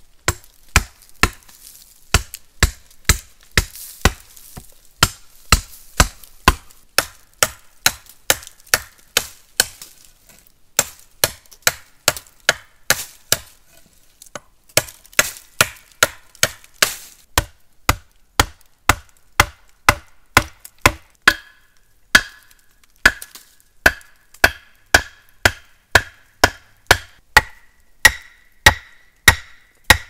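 Repeated sharp chopping strikes at an even pace of about two a second, pausing briefly near the middle; later in the run each strike carries a short ringing tone.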